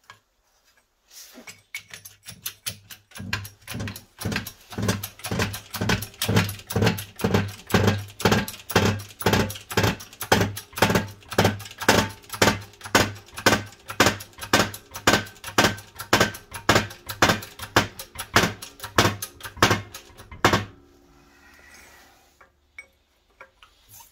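A 20-ton hydraulic bottle jack in a homemade press being pumped by hand, a rhythmic pumping stroke about two and a half times a second that grows louder over the first few seconds and stops suddenly about twenty seconds in. The jack is pressing a new wheel hub bearing into its hub.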